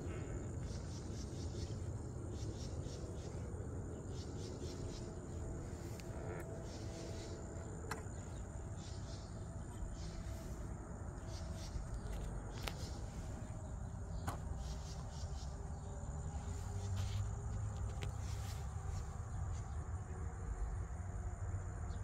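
Outdoor ambience: insects chirping in a steady high trill over a constant low rumble, with a few faint sharp clicks scattered through.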